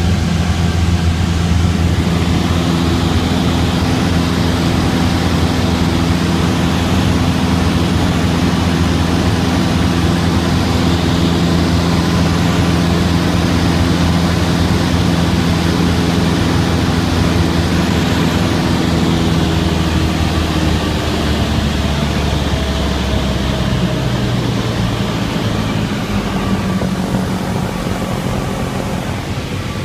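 Cabin noise of a small single-engine propeller plane in flight: the piston engine and propeller make a steady, loud drone. About two-thirds of the way through, the engine note drops lower and the sound eases off as power is reduced.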